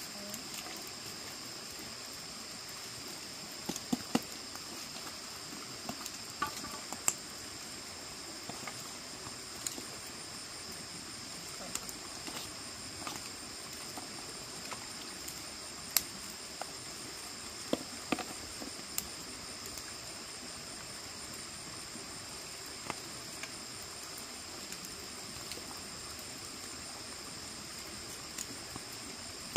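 Steady high-pitched chorus of insects, with scattered sharp clicks and knocks every few seconds.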